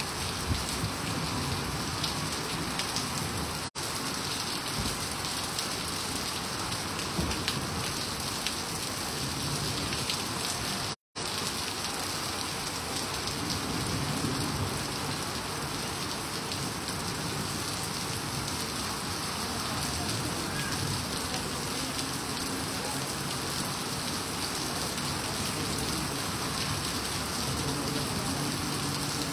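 Heavy rain pouring steadily onto flooded pavement, a continuous even hiss. The sound drops out for a moment twice.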